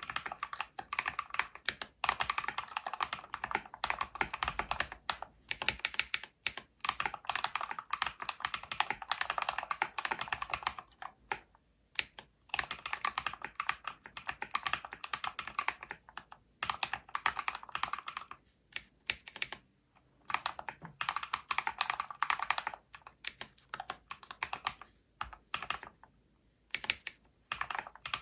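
Mechanical keyboard with Holy Panda tactile switches in a full-aluminium case, typed on in quick runs of keystrokes broken by short pauses.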